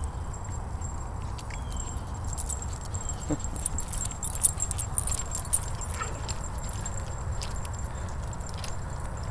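Two dogs running in play on grass, their collar tags jingling in a flurry of light clicks as they dash close by, from about two and a half to six seconds in. A steady low rumble runs underneath.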